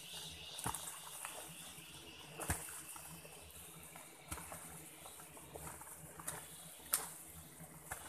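A hand hoe chopping into dry earth and leaf litter, with about five sharp strikes a second or two apart.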